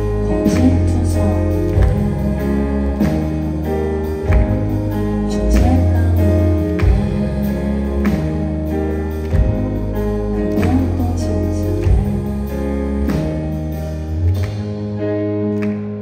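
Live band music: a woman sings a slow song into a microphone over keyboard, bass and drums, heard through a festival PA system.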